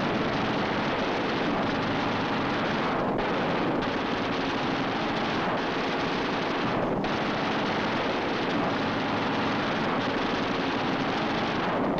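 Steady, dense noise of aircraft engines on a 1940s film soundtrack, even in level throughout, with a few brief dips in the upper range.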